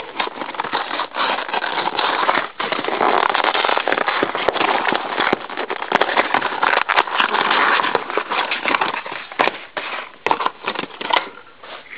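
Cardboard packaging of a trading-card theme deck being torn open by hand, with continuous crackling, ripping and crinkling of card and plastic that eases off near the end.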